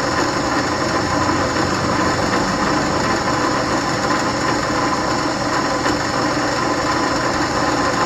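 An old drill press running at a steady speed, its motor and spindle giving an even whir with a few held tones.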